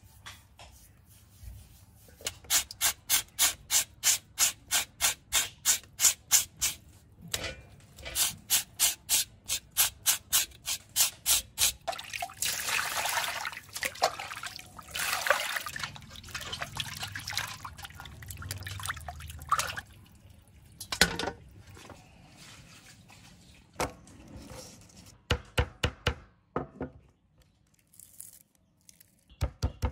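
Hands rubbing and scraping a slab of raw pork on a bamboo slat board in steady strokes, about four a second, then a stretch of water sounds. Near the end come quick runs of thuds from a wooden pestle pressing spring onions on a wooden cutting board.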